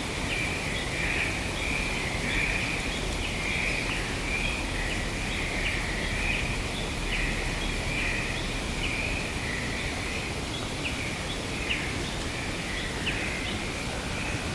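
Forest ambience: a continuous, gently pulsing high-pitched chorus of calling animals, with short chirps scattered through it, over a steady hiss of wind.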